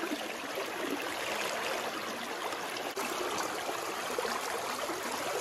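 River water running steadily, an even, unbroken rush.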